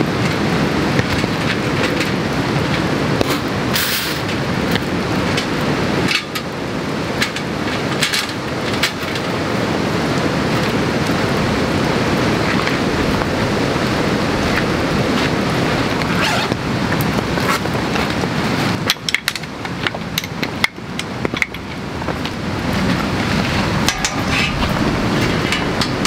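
Steady rain falling, with scattered short taps and clicks through it; the rain thins briefly about three-quarters of the way through.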